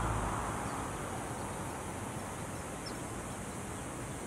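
Steady outdoor background noise, a little louder in the first second and then even, with one faint short chirp about three seconds in.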